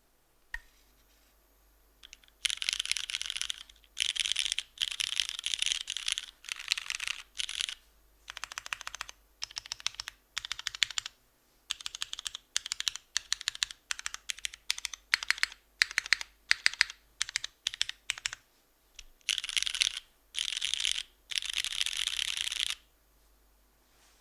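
Typing on a 60% mechanical keyboard with lubed Cherry MX Red linear switches, GMK keycaps and a full aluminium plate, top-mounted with no foam. A single click comes about half a second in; then fast runs of keystrokes alternate with slower, separate strokes and short pauses, stopping shortly before the end.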